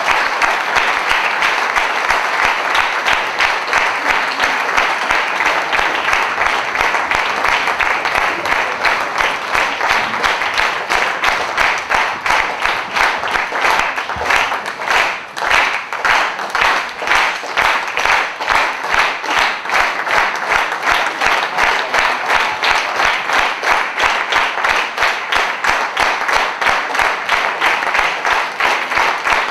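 Theatre audience applauding at a curtain call. From about halfway through, the clapping turns into rhythmic clapping in unison at about three claps a second.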